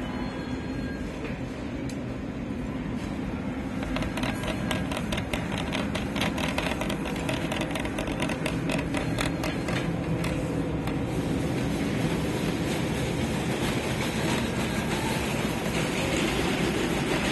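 Metal shopping cart rolling over a tiled floor, its wheels and wire basket giving a steady rumbling rattle, with a run of quick regular clicks from about four to ten seconds in.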